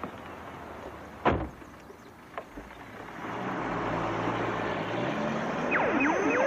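A car door shuts with a single sharp knock a second or so in; then a car engine runs louder as it moves off, and near the end a police siren starts up, its tone rising steeply in pitch.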